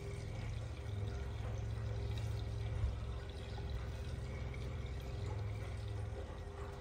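Fresh milk pouring in a steady stream from a milk tank's metal outlet valve into a plastic bucket, with a steady low hum underneath.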